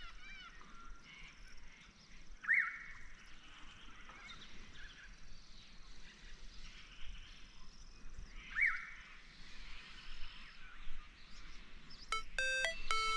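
Evening riverbank ambience: a steady background chorus of birds and insects, with two short, sharp bird calls rising in pitch, one about two and a half seconds in and one about eight and a half seconds in. About a second before the end, background music with a repeating run of bright plucked notes begins.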